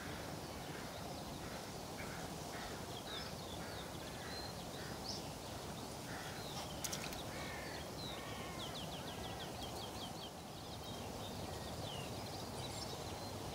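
Wild birds calling and singing: a run of short, evenly repeated calls in the first half, then a fast trill, with one sharp click about halfway through.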